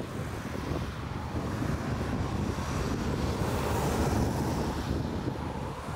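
Strong gusty wind buffeting the microphone over the steady rumble and hiss of an Airbus A320-family jet's engines on short final, the engine hiss growing louder about halfway through as the jet comes closer.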